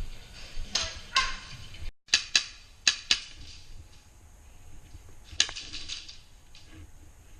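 Airsoft guns firing indoors: sharp single cracks, four in quick succession starting about two seconds in, then a short rapid burst about five and a half seconds in. The sound cuts out for a moment just before the first crack.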